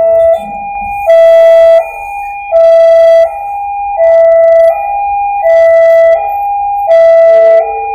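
Railway level-crossing warning alarm sounding as a train approaches: an electronic two-tone signal alternating high and low, with a louder, harsher stroke about every second and a half.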